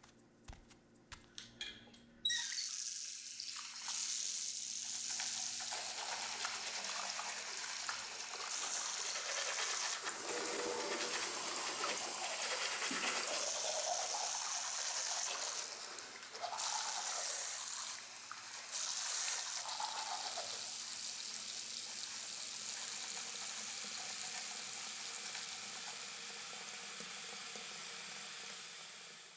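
A bathroom sink's chrome tap turned on and left running in a full, steady stream. A few light clicks come first, the water starts suddenly about two seconds in, and it fades out near the end.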